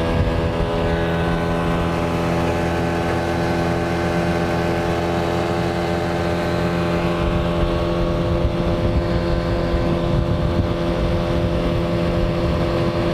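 Yamaha 9.9 outboard motor running at a steady, high cruising speed on a small boat, heard close from the transom, with the rush of the wake underneath.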